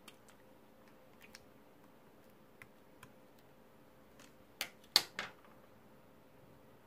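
Marbled slime being played with by hand: scattered sticky clicks, then a cluster of three louder pops about four and a half to five seconds in.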